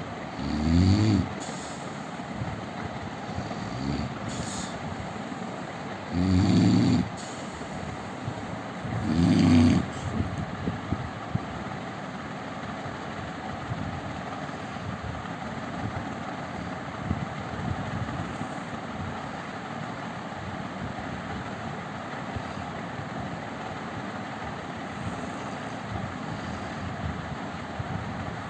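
A man snoring: three loud, low snores about a second long in the first ten seconds, a weaker one between them. After that only a steady background noise remains.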